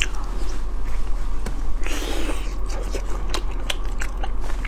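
Close-miked mouth sounds of biting and chewing a soft, sticky glutinous rice cake (osmanthus tiaotou gao filled with red bean paste): many small wet smacks and mouth clicks, with a brief breathy rush about two seconds in, over a steady low electrical hum.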